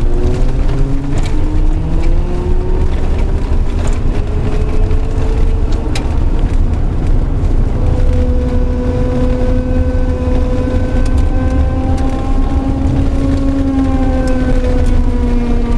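A whining tone from a GMC Sonoma pickup, with several overtones, rising slowly in pitch over the first few seconds, holding steady through the middle and easing slightly down near the end, over a loud steady low rumble of the running vehicle. The owner cannot identify the cause of the noise.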